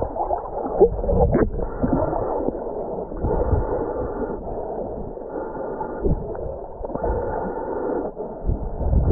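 Muffled sea water sloshing and gurgling, heard from underwater, in uneven surges.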